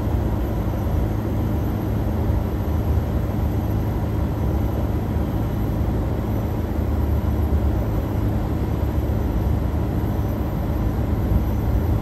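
Daikin VRV-X outdoor unit running, its compressor and fan giving a steady low drone and hum.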